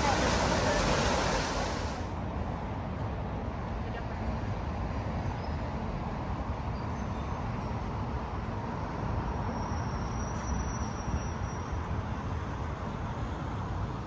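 Fountain jets splashing into a pool, a loud, even rush that cuts off suddenly about two seconds in. It gives way to a quieter, steady outdoor hum of distant road traffic.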